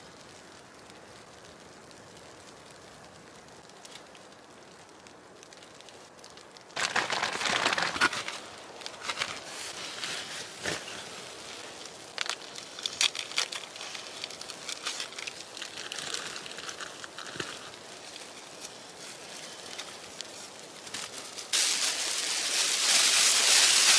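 A faint steady hiss, then from about seven seconds in a foil survival blanket being unfolded and handled: irregular crinkling and rustling that comes and goes, loudest near the end.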